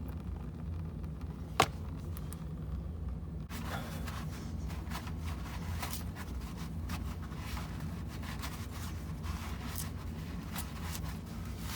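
Hand work under a car at the oil filter: a single sharp click about one and a half seconds in, then a run of small clicks and scrapes, over a steady low hum.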